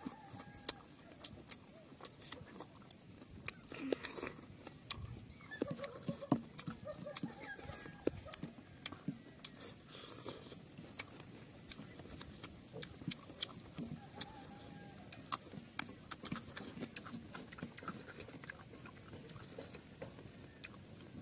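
Close-miked eating by hand: chewing and mouth noises in many short sharp clicks, with fingers gathering rice on a banana leaf.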